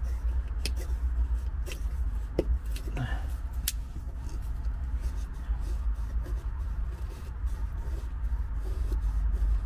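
Wind rumbling on the microphone, with a few short, sharp clicks or scrapes in the first four seconds.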